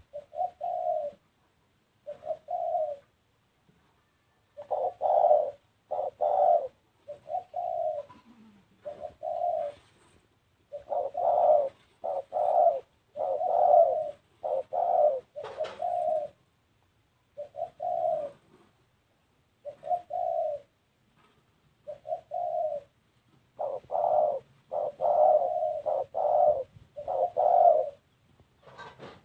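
Spotted dove cooing: short, low coos repeated in runs of two to five, with brief pauses between the phrases.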